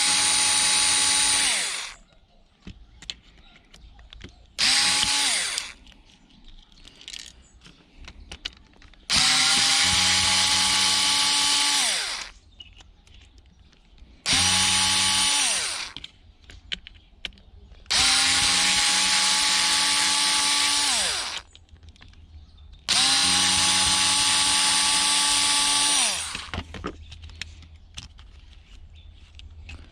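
A small cordless drill-driver running in six short bursts, each spinning up, holding a steady whine and winding down as the trigger is released, with light clicks of handling in between. This is the sound of screws being driven out of an electronics casing and circuit boards.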